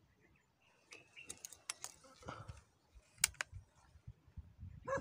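A few sharp clicks and light rustling from handling an airgun among shrub leaves while it is being aimed, with no shot yet.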